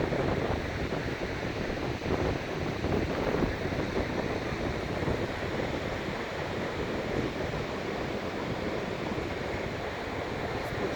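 Pacific Ocean surf washing onto a sandy beach, a steady rushing wash that swells and eases, with some wind on the microphone.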